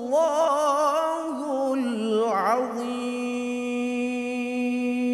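A male qari chanting the word "Allah" of the closing formula "Sadaqallahul 'azim" in a melismatic line with fast vibrato and a swooping ornament. From about three seconds in he settles onto one long, steady held note.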